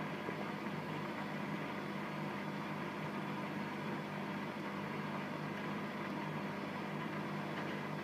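Hotpoint WML560 front-loading washing machine in its spin after the wash: a steady hum from the motor and turning drum, holding an even speed.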